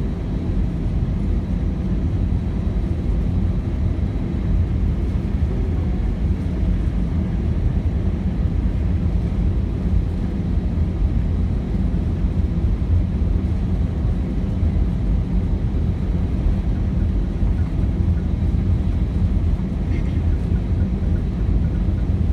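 Steady low rumble of an Airbus A319's engines and cabin airflow heard from inside the passenger cabin while the jet taxis on the ground.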